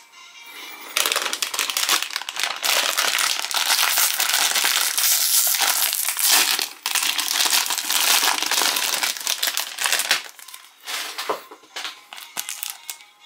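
Plastic wrapper of a Chipicao croissant being pulled open and crinkled by hand: a dense crackling rustle. About ten seconds in it thins to a few scattered crinkles as the collectible cap in its clear plastic sleeve is handled.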